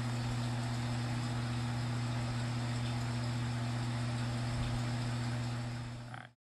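A steady machine hum with an even hiss over it, holding one low pitch without change, then cutting off suddenly near the end.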